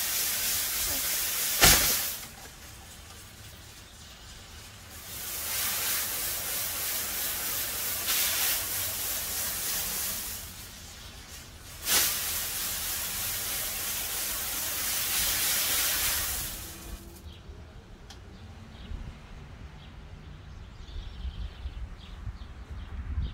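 Hanging lantern firework's spinning fountain drivers sizzling as they burn, in three spells with a short lull between the first two. A sharp pop ends the first spell at about two seconds and another comes about twelve seconds in. The sizzling stops around seventeen seconds.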